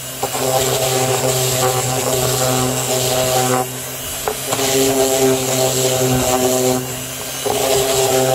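Bosch random orbital sander running steadily, sanding down the sharp edges of a wooden box. Its hum dips briefly twice, about four and seven seconds in.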